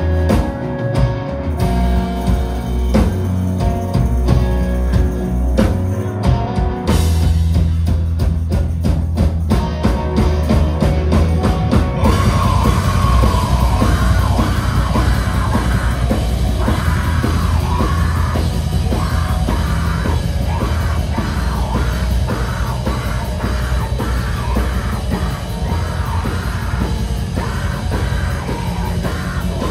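Live rock band playing a song: a sparse passage of held low notes and scattered higher notes, then about twelve seconds in the full band with drums comes in, denser and louder.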